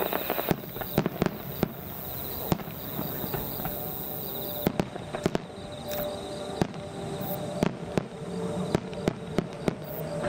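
Fireworks shells bursting in a rapid, irregular string of sharp bangs, heard from far off; the bangs come thicker in the second half.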